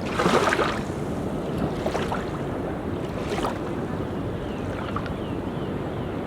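Sea surf washing on a beach in a steady rush, with a louder wave splash just after the start and another a little after three seconds.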